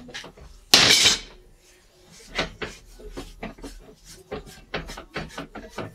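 Large adjustable wrench set down on a steel welding table: a loud metal clatter about a second in. Lighter knocks and clicks follow as the red air/hydraulic ram is handled.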